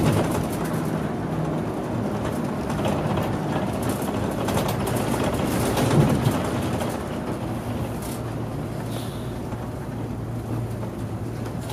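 Mitsubishi Fuso Aero Star bus driving along a road, heard from inside the cabin: engine running with road noise. It gets a little quieter about two-thirds of the way through, settling to a steady low hum.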